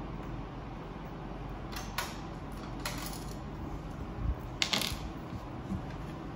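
A few sharp clicks and light clatters of parts being handled while a Ricoh MP C306 multifunction printer is taken apart, the loudest cluster a little under 5 seconds in, over a steady low hum.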